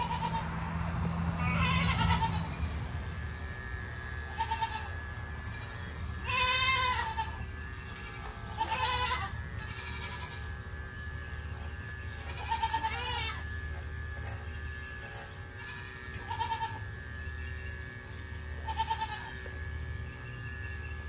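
Nigerian dwarf goat bleating again and again, a short call every two or three seconds, over the steady hum of electric goat clippers running.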